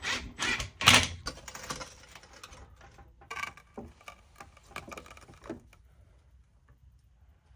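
Irregular clicks and knocks of tools and parts being handled, with one sharp knock about a second in, thinning out to a few faint clicks towards the end.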